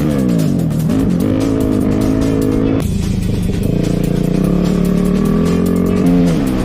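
Honda CRF450R single-cylinder four-stroke engine running under load as the bike is ridden. Its pitch falls and rises with throttle and gear changes, and it drops abruptly about three seconds in.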